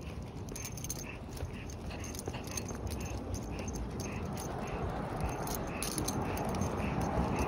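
A dog on a walk, with a light, regular sound about twice a second over a steady low rumble that grows louder near the end.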